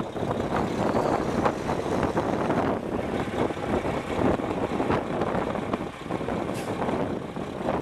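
Mack E7 12-litre diesel engine of a semi truck running, heard outdoors with wind buffeting the microphone.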